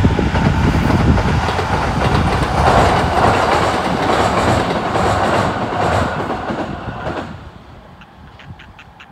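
Tobu 20400 series electric commuter train running past on the rails, its wheel and running noise loud at first, then dropping away sharply about seven seconds in as it moves off.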